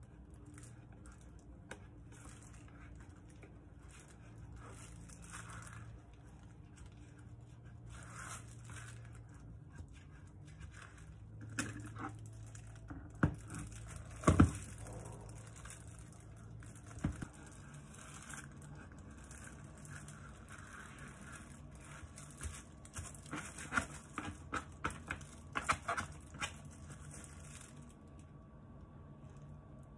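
Light crinkling of plastic food-prep gloves and scraping of a plastic scraper around a metal baking pan. About halfway through come a few sharp knocks as the pan is turned upside down onto a plastic cutting board to release the cake. Near the end there is a quick run of smaller taps and clicks.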